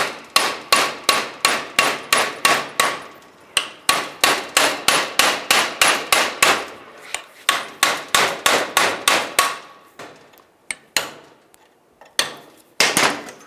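Hammer striking a screwdriver used as a drift to drive an old door hinge bushing out: a fast, even run of metal-on-metal blows, about four a second, each with a short ring. After a brief break the blows resume, then thin out to a few scattered strikes near the end.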